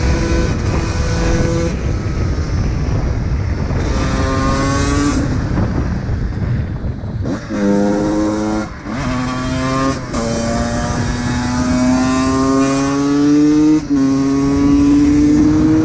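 Honda CR125's single-cylinder two-stroke engine accelerating hard through the gears: the pitch climbs in each gear and drops back sharply at the shifts, about ten and fourteen seconds in.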